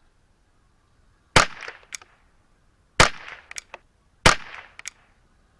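Ruger 10/22 semi-automatic rifle firing .22 LR rounds, three sharp shots about a second and a half apart, with a fourth right at the end. Each shot is followed by a brief tail and a few faint clicks.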